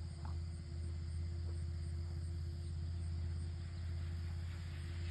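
A steady low hum, with a thin constant tone above it.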